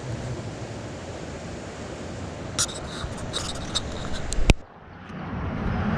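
Steady outdoor wind noise on the microphone. About two and a half seconds in comes a run of irregular sharp clicks and light knocks, ending in one loud click, after which the sound briefly drops away before the noise returns.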